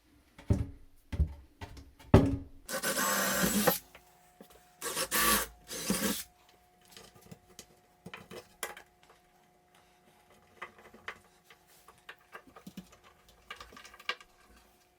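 Workshop handling of wooden cabinet parts: a few sharp knocks, then a loud rasping noise lasting about a second, two shorter ones a couple of seconds later, and scattered light clicks and ticks.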